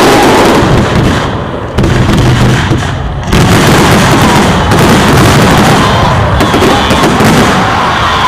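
Fireworks display going off in a loud, continuous barrage of bangs, with the din dipping and then jumping back up sharply twice, about two and three seconds in.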